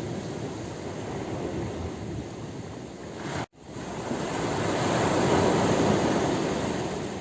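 Ocean surf: a steady rush of waves, with a louder wave surging and washing in over the second half. The sound drops out for an instant about halfway through.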